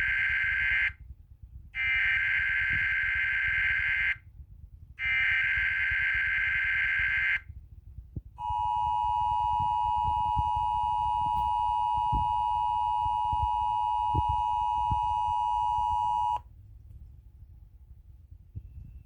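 Emergency Alert System broadcast over weather radio: three bursts of warbling digital header data tones with short gaps between them, the first already under way. Then comes the EAS attention signal, two steady tones sounded together for about eight seconds, which cuts off sharply, leaving a low hum.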